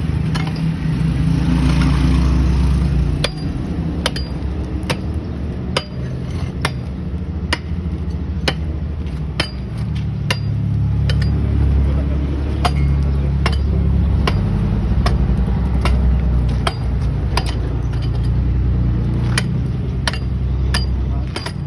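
An engine running with a steady low rumble, over sharp metallic knocks struck at an even pace of about one a second.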